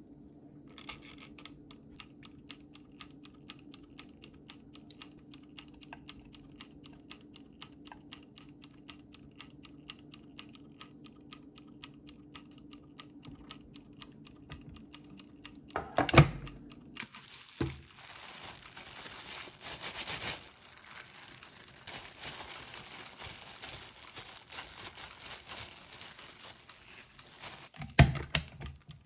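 A quick, even run of light clicks over a low steady hum. Then a loud knock, a long stretch of rustling and crinkling, and another knock near the end.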